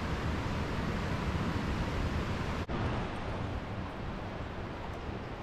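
Steady rushing of fast creek water over riffles, an even noise with no distinct events. About halfway through it cuts abruptly to a quieter, duller rush.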